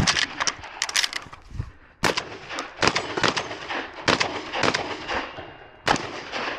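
Semi-automatic 12-gauge shotgun, a Beretta 1301 Comp Pro, firing a string of shots during an IPSC stage: a fast cluster of shots at the start, then single shots and pairs spaced out by short pauses.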